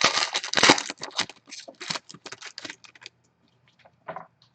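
A trading-card pack wrapper being torn open and crinkled: a dense burst of crackling in the first second, then lighter rustles and clicks of handling that die away.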